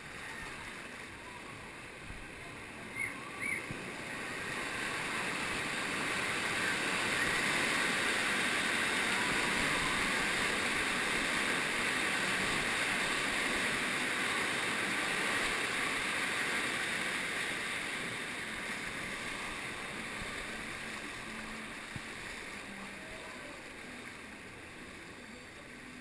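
Rushing, churning water of a water-park river rapids, heard close at water level from a tube floating through them. The rush swells to its loudest through the middle and gradually eases toward the end.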